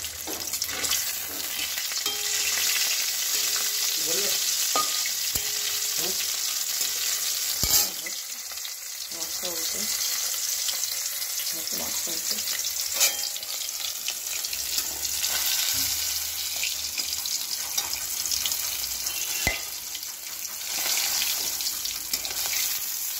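Fish sizzling steadily as it fries in hot oil in a steel wok, with a metal spatula scraping the pan and knocking against it sharply a few times.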